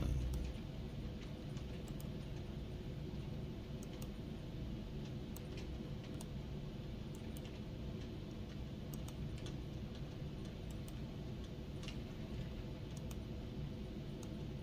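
Scattered single computer mouse clicks, about one every second or two, over a steady low hum.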